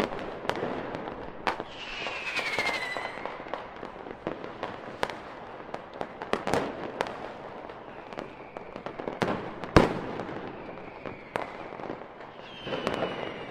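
Fireworks and firecrackers going off: a steady spread of pops and crackles with scattered sharp bangs, a falling whistle about two seconds in and another near the end, and the loudest bang about three quarters of the way through.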